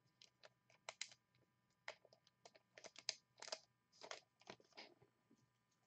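Quiet, irregular light clicks and rustles, a dozen or more scattered through, busiest around the middle, as of small objects being handled.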